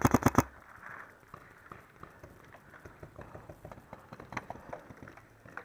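A paintball marker fires a quick burst of about six shots, roughly ten a second, right at the start. Then come faint, scattered pops and ticks across the field.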